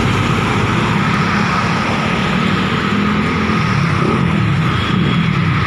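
Honda CBR 250R's single-cylinder engine running at a steady speed through an Akrapovic exhaust with the dB killer removed, mixed with wind and road noise.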